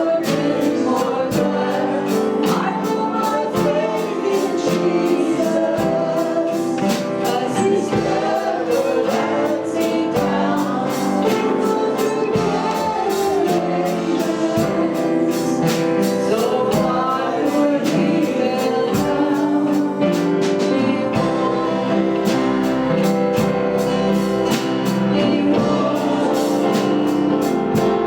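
Congregation and worship band singing a gospel worship song, the voices over sustained instrumental accompaniment with a steady beat.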